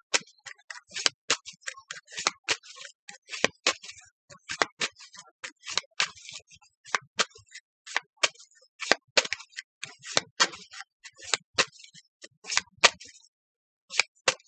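Tarot cards being shuffled by hand: a quick, irregular run of crisp card slaps and clicks, a few a second, that stops near the end.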